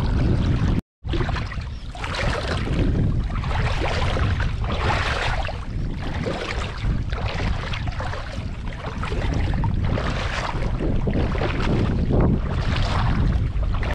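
River water splashing and sloshing in repeated surges about once a second, over a steady rumble of wind on the microphone. The sound drops out completely for a moment about a second in.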